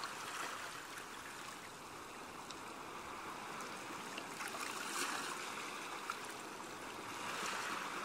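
Sea waves washing: a soft, steady rush of water that swells briefly about five seconds in and again near the end.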